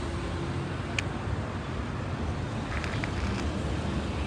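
Road traffic at a street intersection: cars passing, heard as a steady rumble with some wind on the microphone. One sharp click about a second in.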